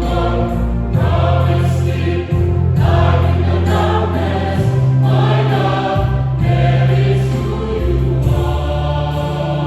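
Church choir singing a hymn, with sustained chords over a low bass part that moves from note to note.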